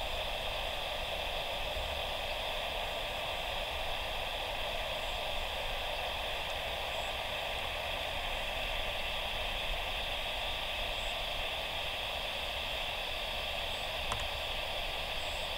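Steady hiss of static from an air traffic control radio feed between transmissions, with a faint click near the end.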